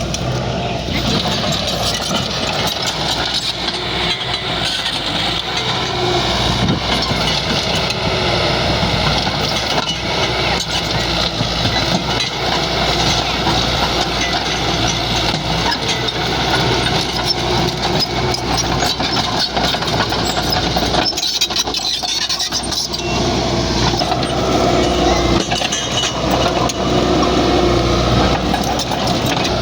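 Bulldozer's diesel engine running steadily under work, with a short dip in its sound about two-thirds of the way through.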